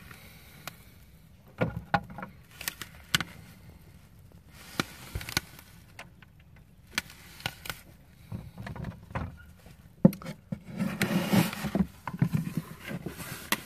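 Handling noises from opening a beehive: scattered clicks and knocks as the hive top and its coverings are moved, with a denser stretch of rustling and scraping about eleven seconds in.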